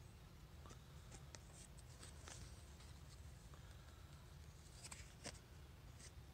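Near silence with faint, scattered rustles and light taps of paper cards and tissue paper being handled.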